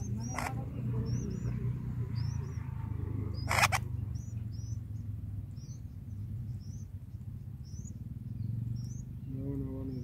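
Bulbul nestlings begging: thin, high cheeps repeated about once or twice a second while being fed, with one short loud crackle about three and a half seconds in, over a steady low hum. A low voice begins near the end.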